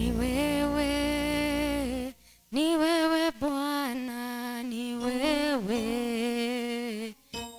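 A woman singing slowly into a microphone, holding long, slightly wavering notes, with a short break about two seconds in.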